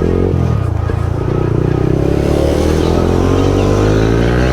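Yamaha MT-15's single-cylinder engine through a loud aftermarket Akrapovic exhaust, accelerating: the note dips briefly just after the start, then climbs steadily in pitch.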